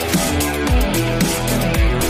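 Music with a steady beat and deep bass hits that drop in pitch, about twice a second.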